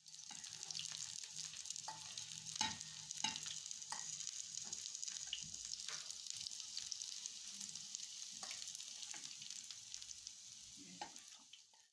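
Onion rings sizzling in hot oil in a frying pan, with a utensil knocking and scraping against the pan now and then as the rings are lifted out.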